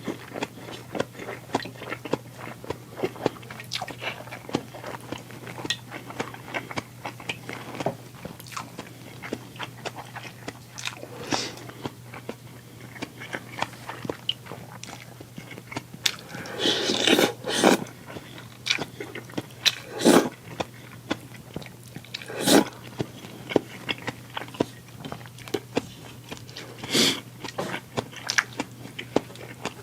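A person eating close to the microphone: steady chewing and crunching with many small mouth clicks, and a few louder sharp sounds around the middle and later on. A steady low hum lies underneath.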